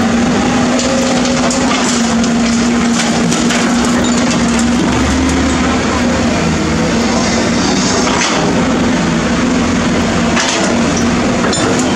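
Cat 320D hydraulic excavator's diesel engine running steadily while its bucket digs and scrapes through broken asphalt and rubble, with scattered sharp knocks and cracks of rock.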